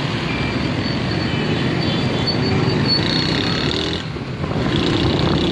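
Engine and road noise heard from a moving vehicle in street traffic, a steady dense rumble that dips briefly about four seconds in.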